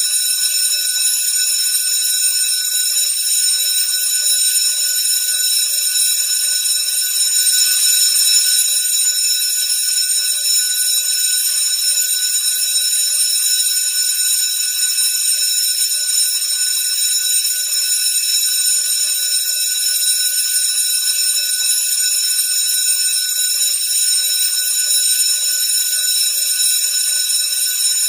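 School bell ringing continuously: one steady, high-pitched ring that holds at the same level throughout.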